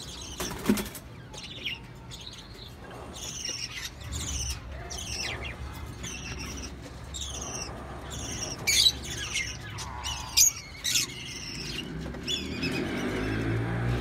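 Ringneck parakeets chirping: a run of short, high, downward-sliding chirps, several a second at times, loudest around nine and ten seconds in. A couple of sharp knocks cut in, one near the start and one about ten seconds in.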